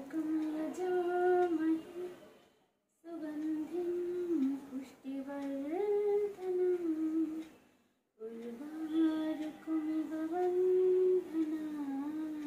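A woman humming a slow tune in long held notes that step up and down, in three phrases with short breaks between.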